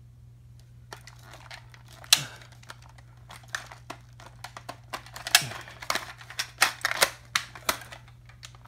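Hard plastic clicks and rattles of a toy foam-dart blaster being worked by hand as its magazine is tried for release, starting about a second in, with several sharp clacks among lighter rattling.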